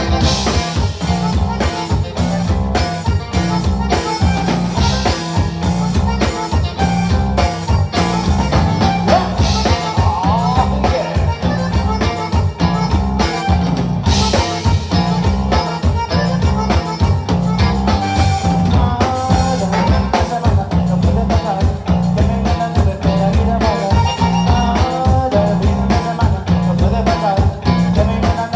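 Live conjunto band playing an instrumental passage: button accordion carrying the melody over bass guitar, guitar and a drum kit keeping a steady beat.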